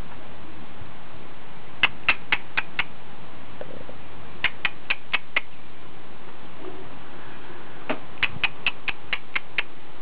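House finches chirping: short, high chirps in three runs of five to eight, about four a second, over a steady hiss.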